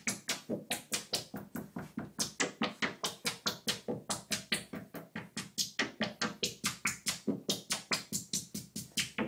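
Analog modular synthesizer playing a fast, steady run of short percussive blips, about five a second, with their tone and brightness changing as a knob is turned.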